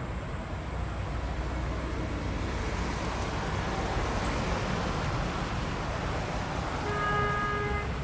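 Airbus A321neo on final approach, its jet engines giving a steady low rumble that grows slightly louder as it nears. A short steady tone sounds about seven seconds in, under a second long.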